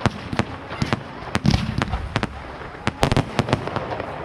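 Fireworks going off: a rapid, irregular string of sharp bangs, about a dozen in four seconds, over a continuous din of more distant bangs and crackling.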